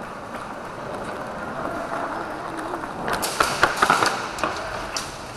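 Airsoft guns firing in an indoor arena: an irregular, rapid string of sharp snapping shots about three seconds in, lasting a second or so, with one more a little later, over steady background noise.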